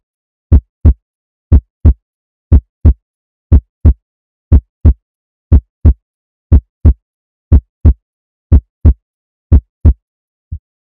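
Heartbeat, a steady double thump (lub-dub) repeating about once a second, around 60 beats a minute, with a last fainter single thump near the end.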